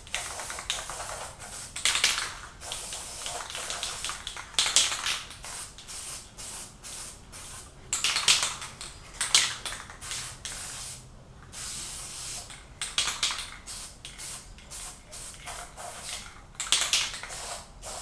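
Aerosol can of Krylon Camouflage khaki spray paint hissing in a series of short bursts, a few of them held longer, as paint is sprayed in quick passes.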